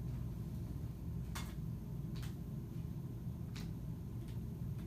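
Steady low room hum with a few faint clicks.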